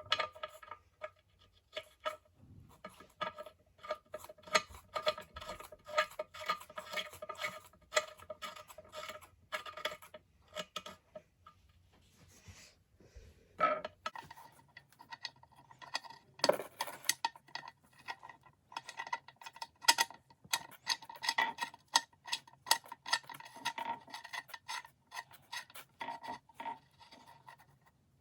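Irregular metallic taps and clinks with a faint ringing tone under them, from work on a Safetran mechanical crossing bell. The pitch of the ringing shifts higher about halfway through.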